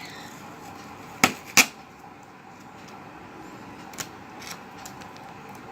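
Two sharp clicks about a third of a second apart, then two fainter ticks later on, from hands working on the wiring and plastic parts inside a TV's back.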